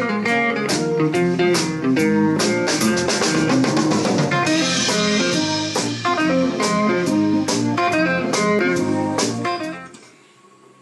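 Guitar-led music with drums keeping a steady beat; it stops shortly before the end.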